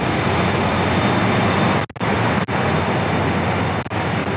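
Train noise at a station platform, a loud steady rush heard as the train doors open and the platform is stepped onto, broken by a few brief gaps.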